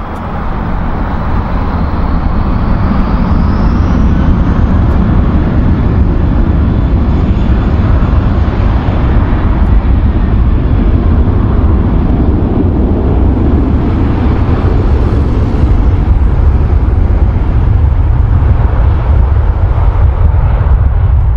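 Jet airliner engines close by, the roar building over the first two or three seconds and then holding loud and steady, with a faint whine rising during the build-up.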